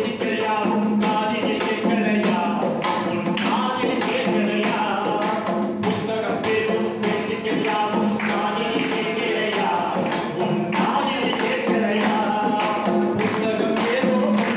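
A man singing a Tamil folk song into a microphone, over a steady hand-percussion beat.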